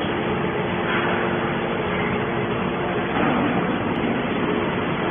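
Horizontal hydraulic scrap-metal baler running, a steady loud machine noise with a faint hum beneath it.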